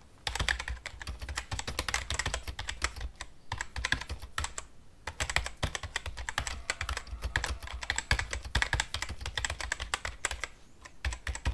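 Typing sound effect: rapid, irregular keyboard key clicks, pausing briefly twice.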